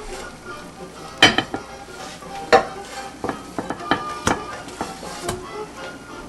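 A utensil knocking and scraping against a frying pan in a series of sharp clicks, over a light sizzle of frying.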